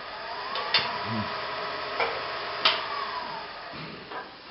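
Small wood lathe running with a steady motor hum and whine, the whine gliding up early on and back down after the middle. Two sharp knocks come about two seconds apart.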